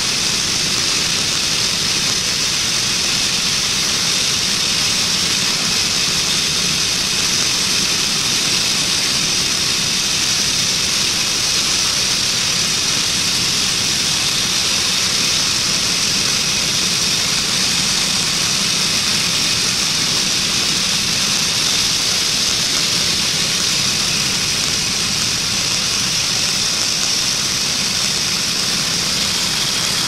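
Woodland Mills manual bandsaw mill running steadily under load, its engine and band blade cutting through a black walnut log, a loud even noise without a break.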